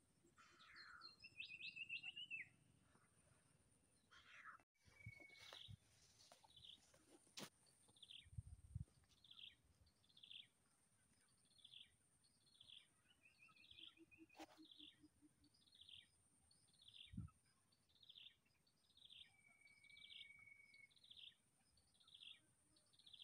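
Faint birdsong: a bird repeats a short falling note about once every three-quarters of a second, after a brief warbled phrase near the start. A steady high-pitched hum runs underneath.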